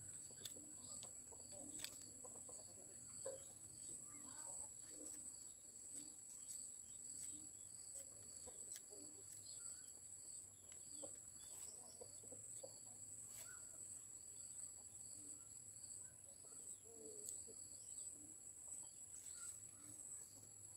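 Faint, scattered clucking of chickens over a steady, high-pitched insect drone, with a few light clicks.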